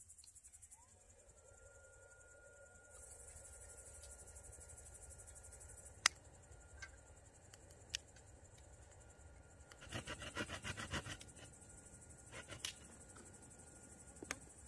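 Crickets chirping steadily in a high band, with a faint steady whine beneath. A few sharp clicks come through, and a quick run of clicking about ten seconds in.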